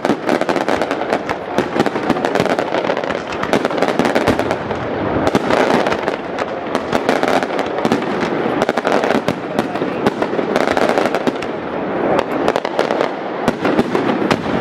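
Aerial fireworks display: a dense, unbroken run of crackling and popping reports, many sharp cracks close together, some louder than the rest.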